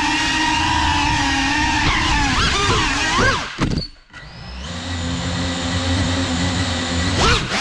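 GEPRC 3.5-inch cinewhoop FPV drone's brushless motors and propellers humming, the pitch wavering and jumping with throttle. About three and a half seconds in, the motors cut almost to silence. They then return to a lower, steady idle while the drone sits on the floor. Near the end a quick rising whine marks the throttle-up for take-off.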